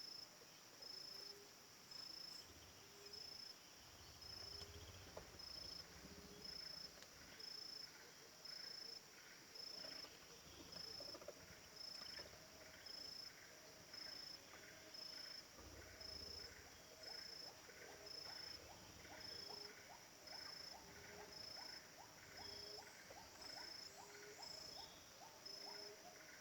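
Faint, even insect chorus: a high chirp pulsing about once a second over lower notes that also repeat.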